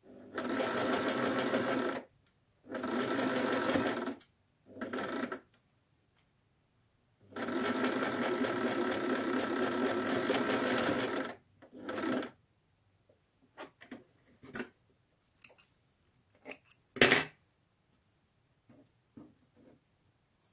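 Domestic electric sewing machine stitching a patchwork seam in five stop-and-start bursts, the longest about four seconds. After that come small clicks and fabric handling, with one sharp click, the loudest moment, about three seconds before the end.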